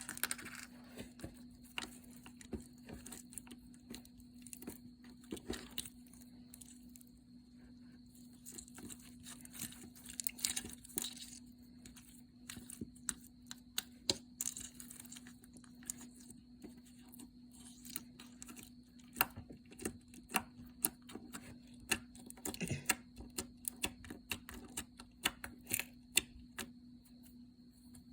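Slime being squished and poked by hand, giving irregular sticky clicks, pops and crackles, denser at times, over a faint steady hum.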